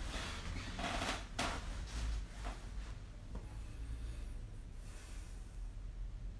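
Rustling and light knocks from a person shifting and settling close to a phone's microphone, loudest in the first two seconds or so, then dying down to a low steady hum.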